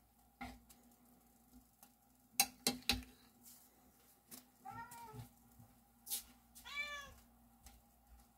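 A metal spoon clinks sharply a few times against a glass saucepan. Then a cat meows twice, each meow a short call that rises and falls in pitch.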